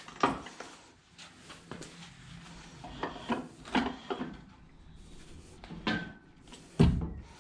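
Scattered metal and wood clunks and knocks as a BMW N52 engine hanging from a hoist chain is shifted into line with its transmission bellhousing. The blows are irregular, a handful in all, and the loudest, deepest clunk comes near the end.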